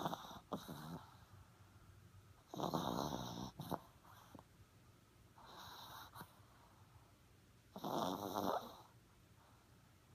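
A small black-and-tan dog snoring in its sleep, with a rasping snore on each breath every two to three seconds; one snore in the middle is softer.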